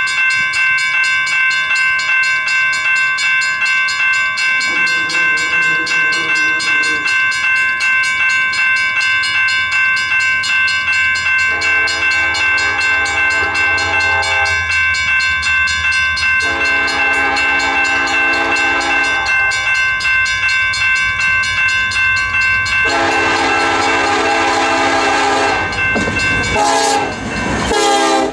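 Union Pacific EMD freight locomotive horn sounding four blasts as the train approaches: a faint one about five seconds in, then three long ones, the last the loudest, with the pitch dropping as the locomotives pass near the end. Under it, a high ringing pulses about twice a second and a low diesel rumble grows as the train nears.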